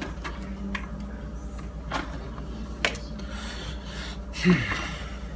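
Kitchen knife slicing raw sweet potato into strips on a plastic cutting board: a few separate knocks of the blade against the board, with a louder scrape about four and a half seconds in.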